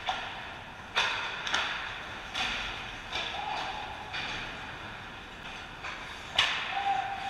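Ice hockey play around the net: sharp clacks of sticks and puck over skate blades scraping the ice, echoing in the rink. The loudest clacks come about a second in and again near the end.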